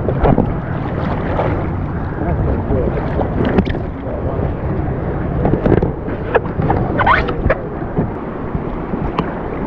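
River water sloshing and splashing around a float tube drifting in the current, with wind noise on the microphone.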